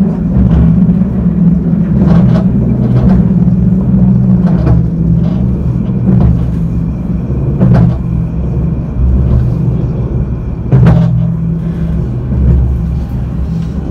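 Alstom Citadis 402 tram running along its line, heard from inside the car: a loud, steady low rumble of running gear on the rails, broken by a few sharp knocks.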